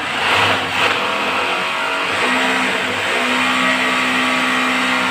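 Electric power drill running steadily as it bores holes for plastic wall plugs, its motor pitch holding steady and growing stronger from about two seconds in.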